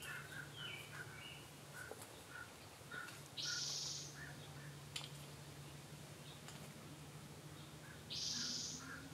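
Outdoor woodland sounds with no owl hooting: a small bird gives short soft chirps a few times a second at the start and again near the end. Twice a loud buzzy hiss about a second long cuts in, over a steady low hum.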